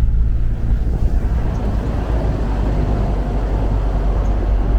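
A vehicle's engine and road noise heard while driving: a steady low drone with a rushing noise that grows about a second in.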